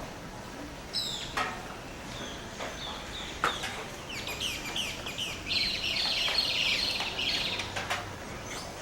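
Rainforest birds calling at dawn: a few short, sharp calls, then from about four seconds in a loud, rapid run of quick downward-sliding notes that lasts around four seconds before breaking off.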